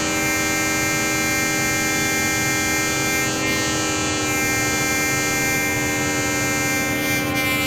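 Modular synthesizer holding a sustained drone of many steady tones stacked into a thick, horn-like chord. Near the end the upper tones begin to shift and waver.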